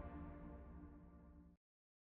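Background music fading out, then cutting to complete silence about one and a half seconds in.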